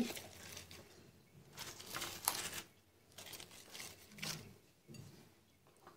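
Faint soft rustling and scraping in a few short bursts as hands lift and shift whole grilled mullet on a serving plate.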